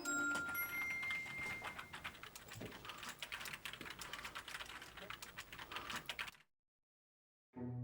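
Fast, irregular typing on a computer keyboard that cuts off abruptly about six seconds in, followed by a second of dead silence.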